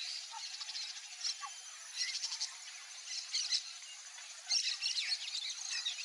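Small birds chirping and twittering in quick high-pitched bursts, busiest about two, three and five seconds in, over a steady high-pitched hiss.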